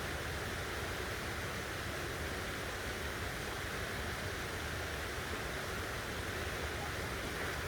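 Steady, even rushing noise of forest ambience, with no distinct events.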